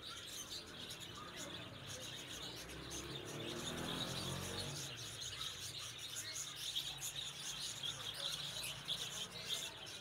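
Faint chirping and twittering of many small caged birds.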